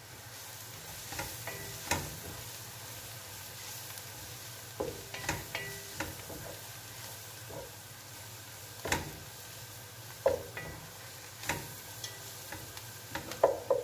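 Strips of beetroot and carrot sizzling in a pot of hot butter as a wooden spatula stirs flour through them, with a steady frying hiss and a few sharp knocks of the spatula against the pot.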